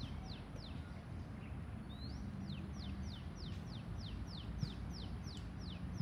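A bird calling a long series of quick, high whistled notes, each falling in pitch, about three a second, with a short pause about a second in, over a steady low background rumble.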